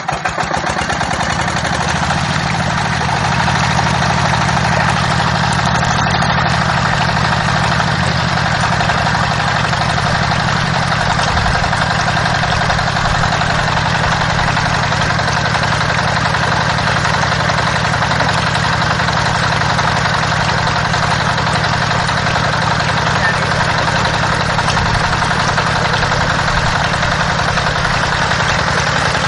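Small motor of a homemade mini water pump running steadily, a low even hum.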